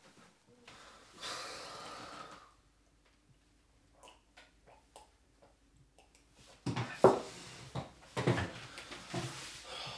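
A person breathing heavily, with several loud, irregular breaths near the end. There is a short rush of noise about a second in, and a few faint clicks in between.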